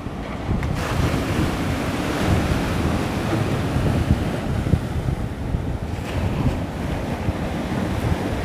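Sea surf breaking and washing over shoreline rocks, a steady rushing wash, with wind buffeting the microphone in a low rumble.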